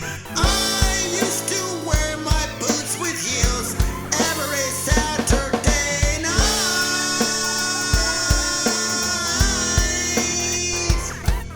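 Music: a song's band backing with a steady kick-drum beat.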